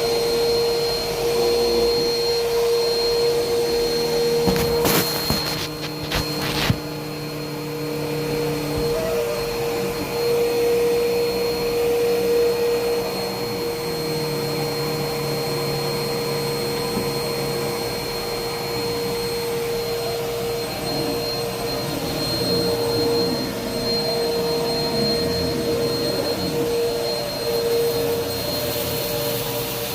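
Household vacuum cleaner running steadily with a constant motor whine, with two sharp knocks about five and seven seconds in.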